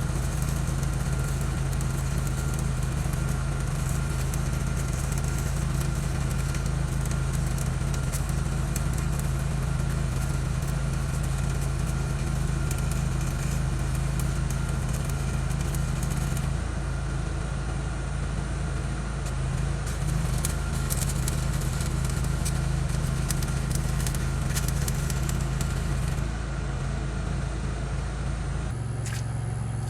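Stick welding with a 7018 rod: the arc crackles in stretches over a steady engine drone running throughout, and the engine's note changes near the end.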